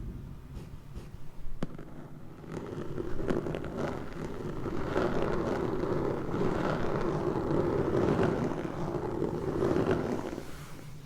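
Close-miked ASMR rubbing, a whooshing noise that builds over a couple of seconds, holds, and fades near the end, with a few light taps in the first seconds.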